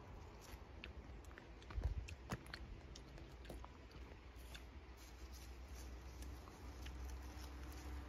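Wild raspberry leaves and stems rustling and crackling in small clicks as a hand reaches into the bush to pick berries, with a soft thump about two seconds in.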